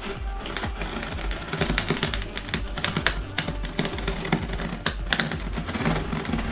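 Cardboard packaging being opened and handled: a quick, irregular run of small clicks, scrapes and rustles.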